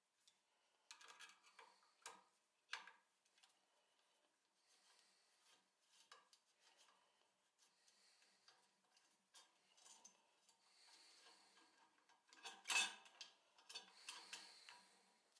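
Faint, scattered metal clicks and taps as a hex key turns the screws of a small steel drilling jig and the jig is handled on a cast iron drill press table, with a louder clink near the end.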